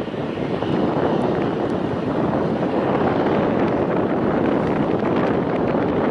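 Steady rushing roar of a Bombardier CRJ-200's two rear-mounted General Electric CF34 turbofans as the jet comes in on final approach, with gear down, mixed with wind buffeting the microphone.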